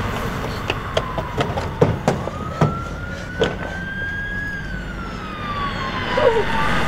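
A siren wailing in one slow rise and fall of pitch over a low steady rumble, with a string of sharp clicks in the first few seconds.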